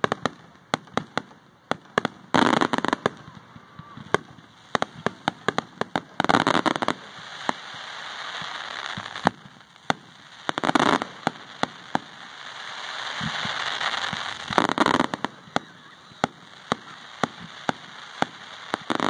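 Aerial fireworks shells going off in quick succession. A string of sharp cracks is broken by four heavier, longer bursts spread through the display, with stretches of rising hiss and crackle between them.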